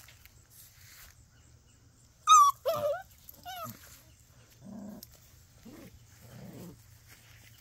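Puppies play-fighting. A loud, high yelp with a wavering pitch comes a little over two seconds in, followed by a shorter, fainter one. Then low, rough play growls come in short bursts about once a second.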